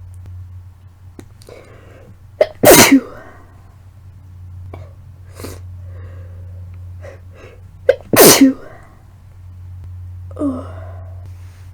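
Two wet, congested human sneezes about five and a half seconds apart, each with a short catch just before it, with breathing between them. They come from a woman sick with a heavily congested head cold she takes for the flu.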